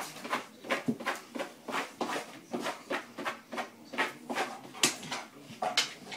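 A quick, uneven run of clicks and taps, about three to four a second.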